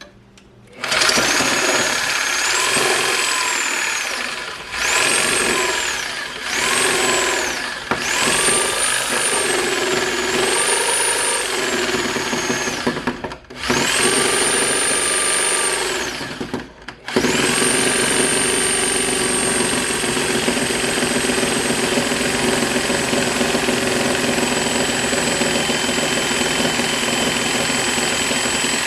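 Power saw cutting into a wooden timber. Its motor whine sags and recovers several times as it loads in the wood, cuts out briefly twice, then runs at a steady pitch.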